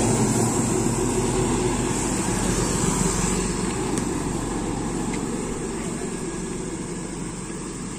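A car driving, its engine hum and road noise growing steadily quieter.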